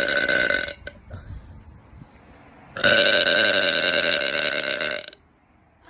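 A woman's long, loud, steady-pitched burps: one trails off just under a second in, and another starts near three seconds in and is held for about two seconds before stopping sharply.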